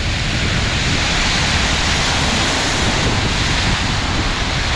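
Sea surf breaking and churning into white water against rocks below a cliff: a steady, loud rush of water.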